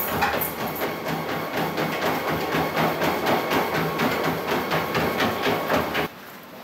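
Motorized Spirit treadmill running with a dog trotting on its belt: a steady motor hum under a fast, regular clatter of paw steps on the moving belt, cutting off suddenly near the end.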